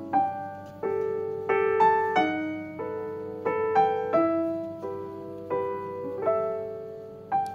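Background solo piano music: a slow, gentle melody of single notes and chords, each note struck and then fading.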